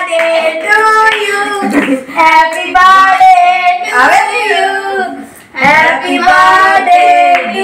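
Children and a woman singing a birthday song together, clapping along, with a short break between lines about two-thirds of the way through.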